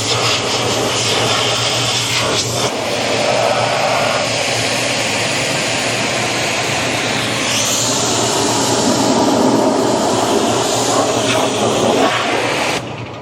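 Pressure washer spraying a conveyor belt: a loud, steady hiss of the water jet whose tone shifts as the spray moves over the surface. It cuts off suddenly near the end as the trigger is released.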